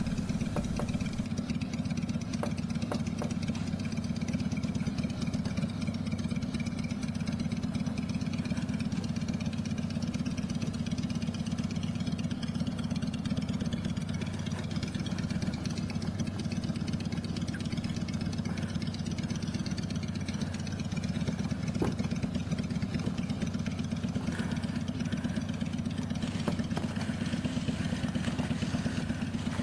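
Random orbital sander running steadily with a low, even hum, buffing rust off chrome with polish.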